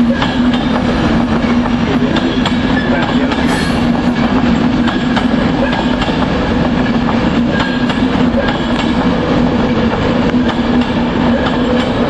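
A train running on the rails: a steady hum with a wide rumble, and wheels clicking irregularly over rail joints.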